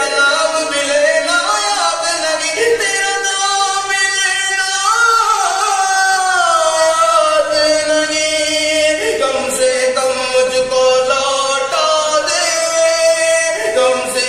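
A man singing a naat, a devotional song, in long held notes that glide up and down in pitch.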